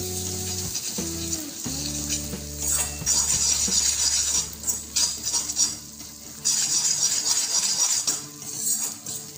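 Slotted steel spoon stirring and scraping jaggery around a metal kadhai, with a light sizzle of hot ghee, as the jaggery melts on low flame. The scraping comes in louder stretches from about two and a half seconds in.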